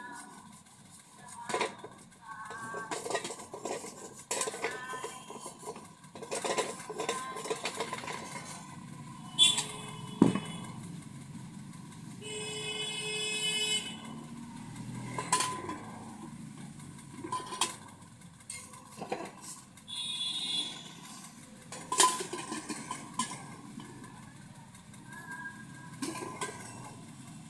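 Metal clinking and knocking as a pressure cooker and its parts are handled and worked on: irregular strikes of metal on metal, with a brief ringing tone about halfway through.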